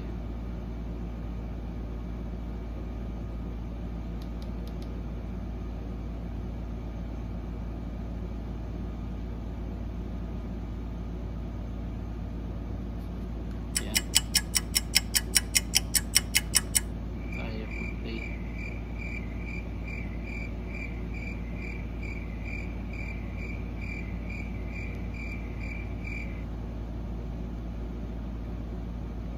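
A JBL Charge 5 portable speaker as its buttons are pressed before a playback test. It gives a quick run of about fourteen sharp clicks, then a high electronic chirp that pulses about twice a second for around nine seconds and stops suddenly. A steady low hum runs underneath.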